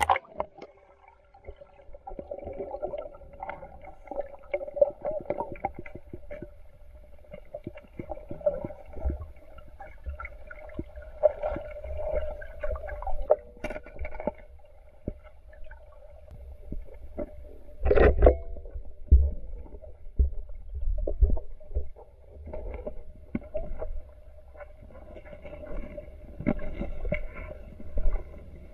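Muffled underwater noise picked up by a submerged camera: a low water rumble with a faint steady hum and scattered knocks and bumps. The loudest bump comes about 18 seconds in.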